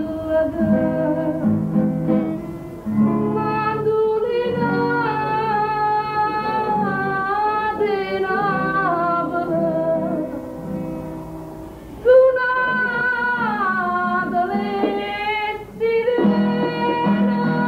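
A song: a solo voice singing a slow melody in long, gliding phrases over plucked guitar accompaniment, with a short lull before a loud new phrase about twelve seconds in.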